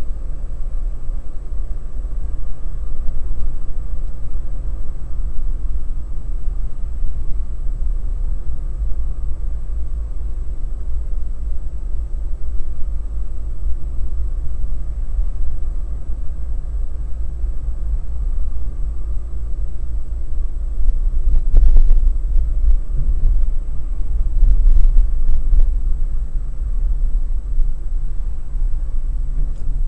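Steady low rumble of a moving car heard from inside the cabin, engine and road noise together, swelling briefly a couple of times about two-thirds of the way through.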